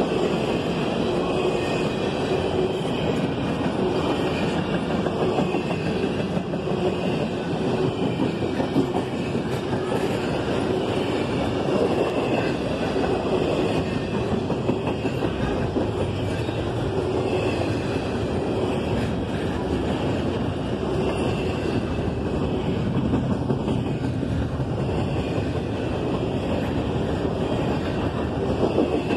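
Freight train of double-stack intermodal container cars rolling past at speed: a steady rumble of steel wheels on the rails.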